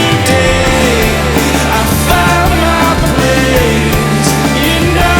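Rock music playing loud and steady, with drums and a melody line that sounds like singing.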